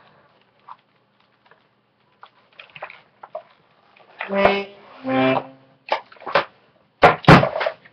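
Toy accordion squeezed, sounding two short chords about four and five seconds in, with clicks from handling the plastic bellows. A loud short sound comes near the end.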